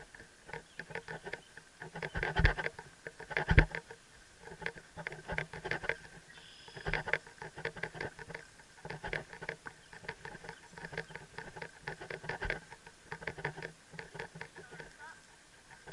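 A helmet-mounted camera rattling and clicking against the helmet while riding a walking horse, in clusters every second or two, with a few heavier knocks near the start.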